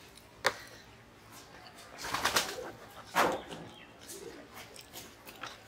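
A dove cooing faintly in the background, against a sharp click and a few short scraping noises from hands mixing rice on steel plates.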